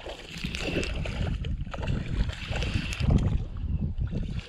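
A small hooked fish splashing and thrashing at the water's surface as it is reeled in to the bank, over a steady low rumble.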